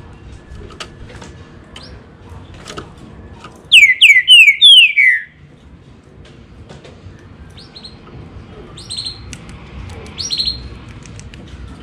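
Green-winged saltator (trinca-ferro) singing one loud phrase of five quick, down-slurred whistles about four seconds in. A few short, high chirps follow near the end.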